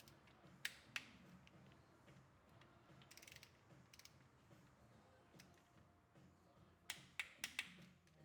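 Faint, scattered clicks and a short rattle of hand tools on metal as the oil pump's screws on the motorcycle crankcase are tightened, with a burst of four quick clicks near the end.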